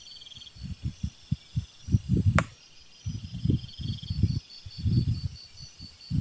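Wind gusting against the microphone in irregular low rumbles, over a steady pulsing chirp of night insects such as crickets. One sharp click about two and a half seconds in.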